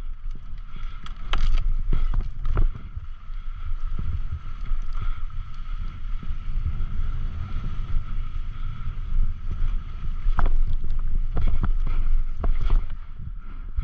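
Wind buffeting the microphone as a heavy low rumble, over the rattle and sharp knocks of a mountain bike riding a rough, loose trail. A steady high-pitched whir runs underneath.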